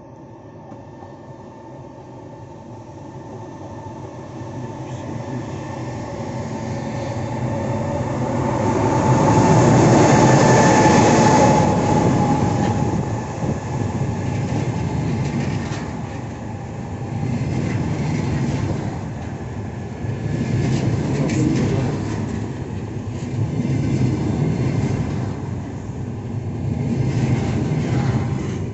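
An EP20 passenger electric locomotive and its train pulling in. The sound grows steadily to its loudest about ten seconds in, with a faint whine as the locomotive passes. Then the coaches roll by, their wheels clattering in a rising and falling rhythm.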